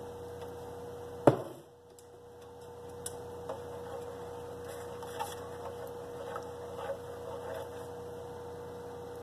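A steady hum, with one sharp knock about a second in, then faint ticks and scrapes of a ladle stirring thick butter sauce in a metal pot.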